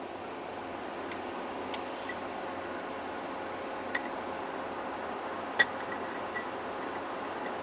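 A few light clicks and taps of parts being handled over a steady fan-like hum, the sharpest click about five and a half seconds in.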